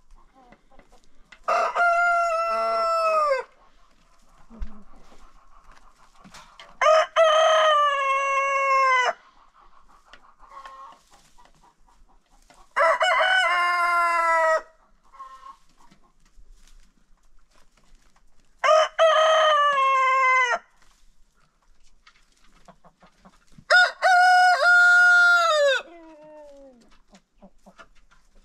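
Roosters crowing in turn: five loud crows of about two seconds each, roughly five to six seconds apart, each ending with a falling tail.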